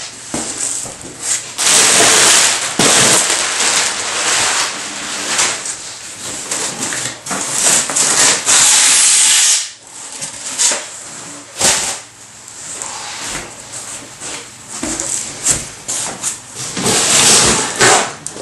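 Packing material rustling and crackling in irregular loud surges as a package is unpacked by hand.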